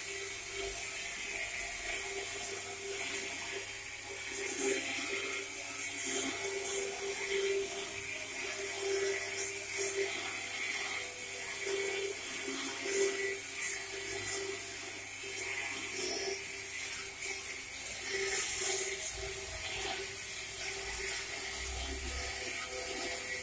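Motor-driven plate rolling machine running, its gear motor and chain drive humming steadily while a steel sheet turns through the rolls into a cylinder, with a few brief high scrapes from the sheet now and then.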